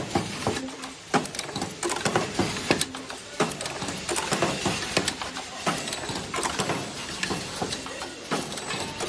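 Automatic ultrasonic face-mask ear-loop welding machine running: a dense, irregular clatter of sharp mechanical clicks and knocks from its moving parts.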